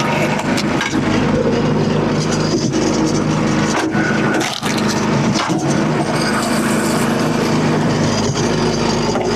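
Small gasoline engine of a log splitter running steadily, with a few short dips in the sound about halfway through.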